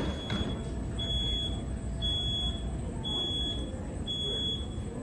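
Electronic warning beeper sounding a high, steady beep about once a second, each beep a little over half a second long, over a low rumble.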